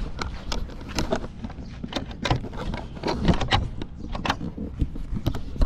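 Irregular knocks and rustling from a handheld camera being carried while walking across a wooden deck, over a steady low rumble.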